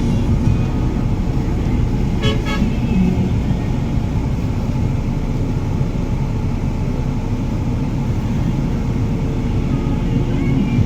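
Steady low rumble of a vehicle engine and traffic, with a short double toot of a car horn about two seconds in.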